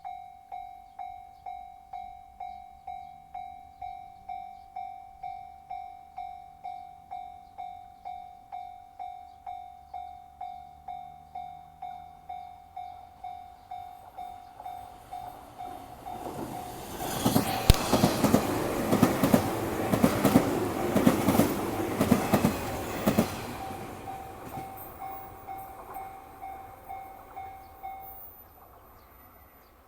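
Japanese level crossing warning bell ringing at a steady clang, about one and a half strikes a second. About halfway through, a 485-series electric train passes for some seven seconds, drowning it with loud clatter of wheels over the rail joints. The bell stops near the end.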